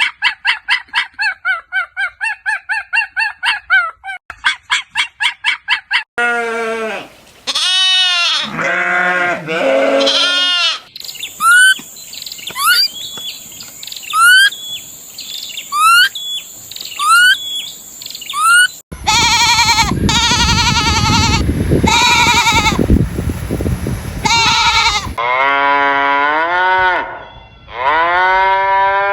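A run of different animal calls, one after another. First a fast series of short pulsed calls for about six seconds. Then long calls that rise and fall in pitch, a string of short rising chirps over a steady high whine, and finally harsher, noisier long calls.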